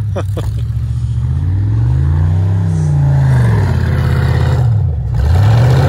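Pickup truck engine revving up and down over and over as it drifts in the snow, the revs climbing and falling about every two seconds, dropping briefly near the end, then climbing again.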